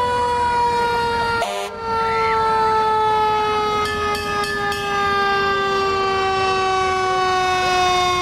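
Fire truck's siren, a single steady tone with many overtones, sliding slowly and evenly down in pitch after a quick rise just before, like a mechanical siren winding down. The sound breaks off briefly about a second and a half in.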